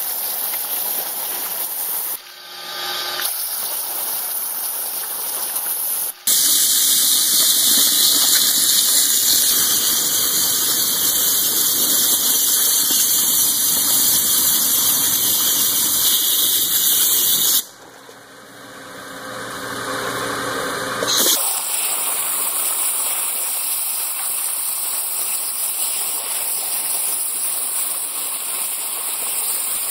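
Flow waterjet's high-pressure stream, turned down to 20,000 psi, hissing as it cuts through a pumpkin, with water spraying and splashing in the catch tank. The hiss turns louder and brighter for about ten seconds in the middle, drops away sharply, then comes back steady.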